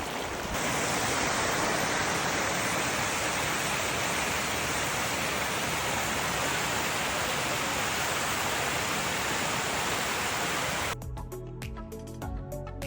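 Steady, even rush of flowing water from a hot river. About eleven seconds in it cuts off and music with a steady beat takes over.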